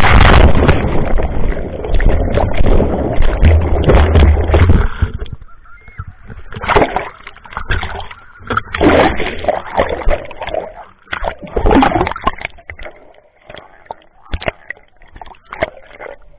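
Riders tumbling off a banana boat into the sea: heavy splashing and rushing water for the first five seconds or so. After that come broken bursts of sloshing and gurgling as the camera dips in and out of the water, dying away near the end.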